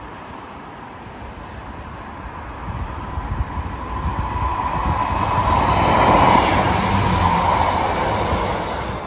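Transport for Wales diesel multiple unit approaching and passing close by on the coastal line. Its engine and wheel-on-rail noise grows over several seconds, is loudest about six seconds in, then falls away near the end.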